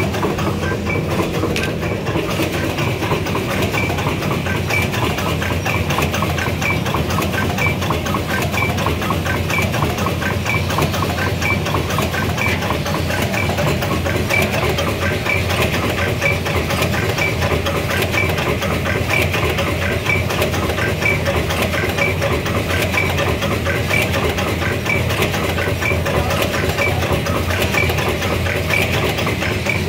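Wet-wipe folding and packing machine running steadily: a dense, even mechanical clatter with a regular sharp click repeating a little under twice a second.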